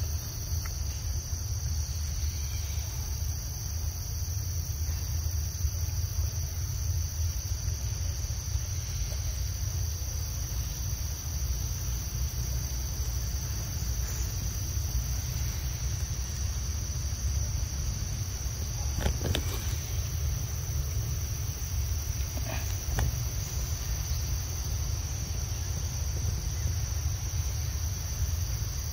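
Steady, shrill chorus of insects in the surrounding vegetation, over a low steady rumble. Twice in the last third comes a brief click.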